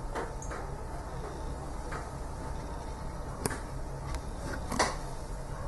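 A few light clicks and knocks over a steady low hum, with a sharp click about three and a half seconds in and a louder clatter about a second later.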